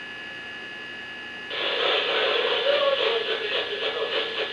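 A steady hiss, then about a second and a half in a tinny, narrow-sounding voice over a radio cuts in suddenly and carries on.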